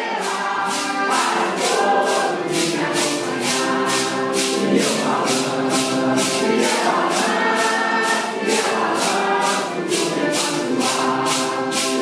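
A group of women singing a Santo Daime hymn together, with metal maracás shaken on the beat at about two to three strokes a second.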